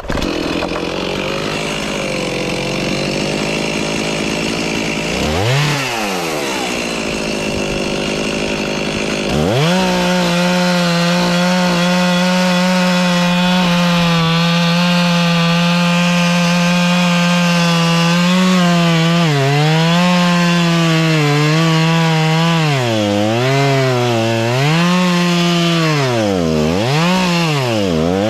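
Two-stroke chainsaw running, starting abruptly, revving up and down once about five seconds in, then held at high revs from about ten seconds in as it cuts into a tree trunk. In the last third the engine pitch dips again and again as the chain loads up in the wood.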